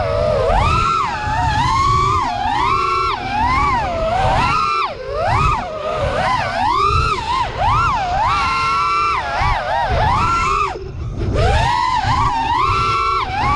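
FPV racing quadcopter's brushless motors and propellers whining, the pitch sweeping up and down constantly with throttle as it flies the course, over a low wind rumble on the onboard camera. About eleven seconds in the whine drops away sharply for a moment as the throttle is cut, then climbs back.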